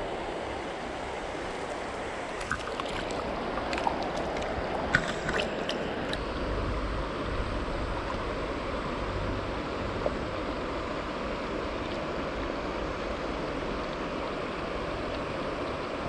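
River current rushing steadily, with a few small sharp clicks from about two to six seconds in.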